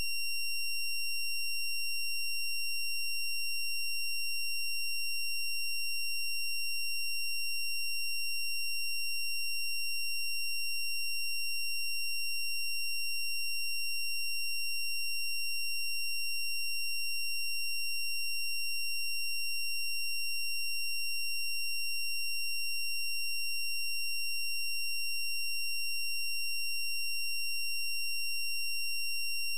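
A steady, high-pitched electronic tone with a faint low hum beneath it, never changing in pitch or level.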